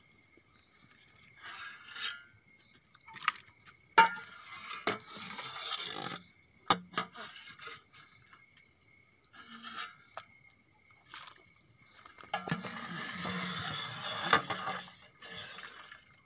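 Stainless steel cup and bowls scraping and clinking as they are handled, in several bursts with a few sharp clinks. A steady high cricket trill runs underneath.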